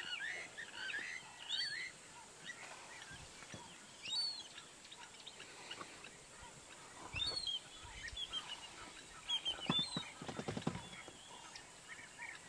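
Birds calling: scattered short chirping notes, with a quick series of clicks or knocks near the end.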